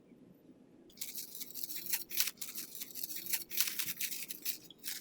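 Scratchy rustling and crackling of an artificial greenery stem being handled and worked into a grapevine wreath, starting about a second in and going on in irregular bursts.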